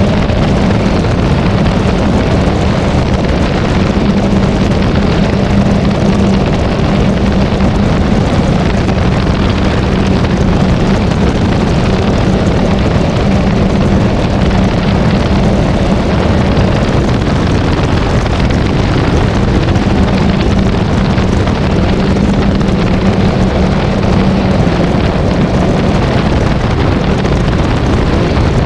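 Can-Am Maverick X3 Turbo RR side-by-side's turbocharged three-cylinder engine running steadily at speed, a constant low drone under wind rushing over the microphone.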